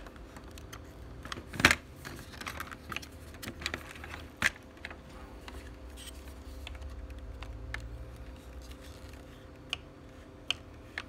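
Parts of a replica pulse rifle clicking and knocking as they are handled and worked apart by hand, with a sharp knock about a second and a half in, another near four and a half seconds, and scattered lighter clicks after.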